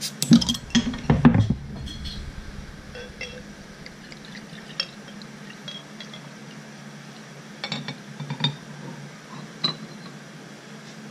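Crown cap levered off a glass beer bottle with a metal bottle opener: a cluster of metallic clicks and knocks in the first second and a half. Then come light glass clinks as the beer is poured from the bottle into a glass jar.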